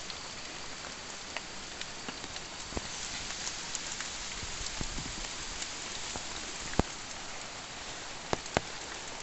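Light rain falling steadily on foliage, a soft even hiss, with a few sharp taps, the loudest about seven seconds in and two more near the end.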